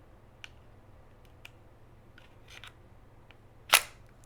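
Glock 43X pistol being reassembled by hand: a few light clicks of parts being handled, then one loud, sharp metallic snap near the end as the slide goes back onto the frame.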